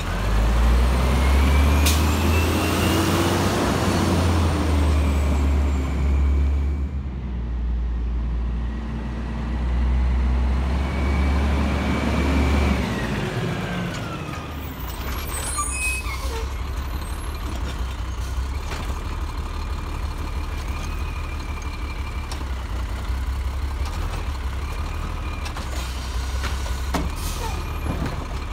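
Automated side-loading garbage truck's diesel engine revving up and back down twice as the truck pulls ahead, then idling steadily for the rest of the time, with a few short sharp clunks or hisses.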